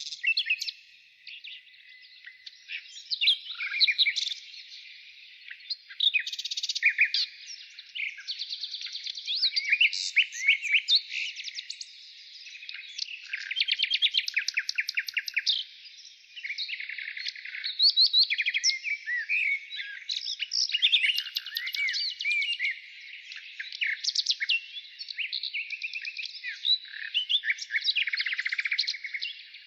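Several birds chirping and singing at once, a dense, unbroken chorus of quick high-pitched trills and chirps that swells and fades in bouts.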